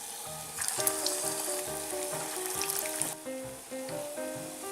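Chicken kofta balls sizzling as they deep-fry in hot oil, under background music with a simple melody. The sizzle stops abruptly about three seconds in, while the music runs on.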